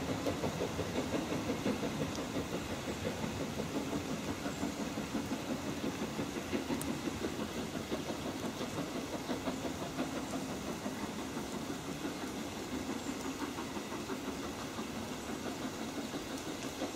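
Exhaust beats of LMS Princess Royal class Pacific 6201 "Princess Elizabeth", a four-cylinder steam locomotive, working away at speed with its train. The beats come in an even, quick rhythm and fade steadily as the train recedes.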